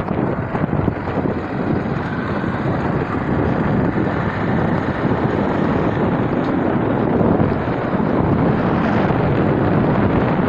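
Steady rushing noise of a moving road vehicle, with wind buffeting the microphone.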